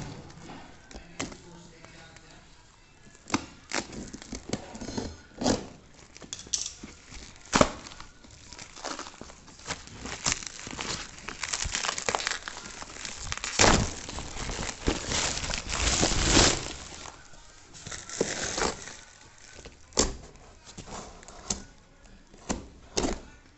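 Packaging being handled and opened: crinkling, rustling wrapping with scattered knocks and thuds, and a denser stretch of crinkling in the middle.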